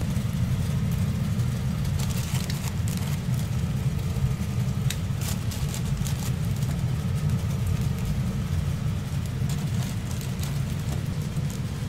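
Steady low rumble of kitchen machinery, with a few light rustles and taps as toast is set into paper-lined boxes.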